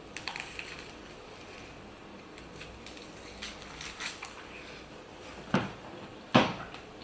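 Eating a sandwich: scattered small crunches and clicks, with two louder sharp sounds shortly before the end.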